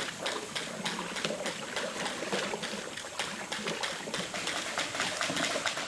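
River water trickling and gurgling, with a fast, even, high-pitched ticking running over it throughout.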